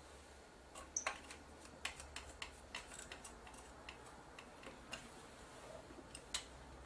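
Small screwdriver driving screws into a camcorder's body: a run of light, irregular clicks and ticks, the sharpest about a second in.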